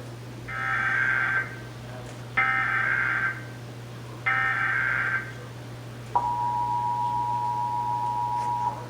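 Emergency Alert System broadcast of a required monthly test. Three short bursts of screechy digital header data, about a second each and evenly spaced, are followed about six seconds in by the steady two-tone EAS attention signal, which lasts about two and a half seconds. A constant low hum runs underneath.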